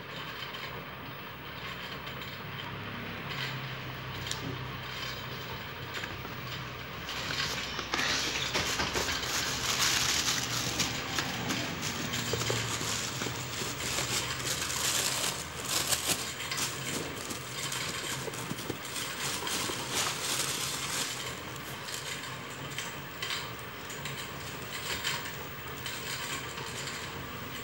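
Shoebox and paper wrapping being handled: rustling and crinkling, busiest about a third of the way in.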